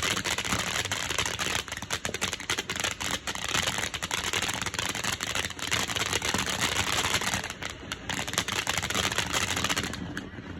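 Fountain firework crackling fast and densely over a steady hiss, dying down about ten seconds in.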